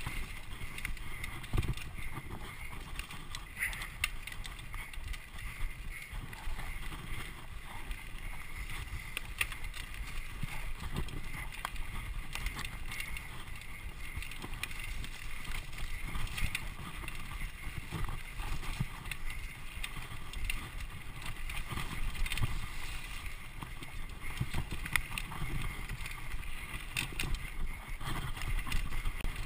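Mountain bike riding over a dirt single track: a steady low rumble from the ride, with frequent short rattles and knocks from the bike jolting over the bumpy trail.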